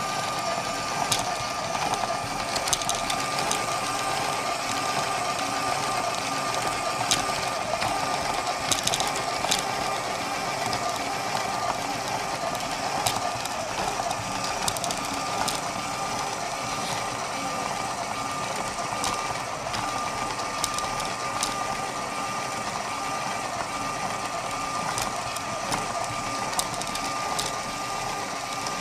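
Electric LEGO Powered Up motor whirring steadily as it drives a plastic conveyor-belt terrain through its gears, with a steady whine and scattered light plastic clicks as the belt and wheels run over the bumps.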